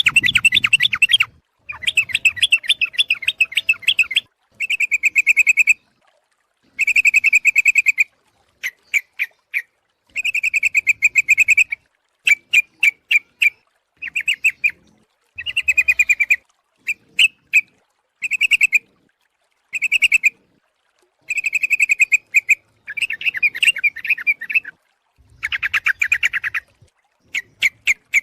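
Yellow-vented bulbul (trucuk) calls from a bird-lure recording billed as a female calling males. The calls come in repeated bursts of rapid, bubbling chatter, each lasting about one to two seconds, with a few short single notes in between. The bursts are separated by completely silent gaps.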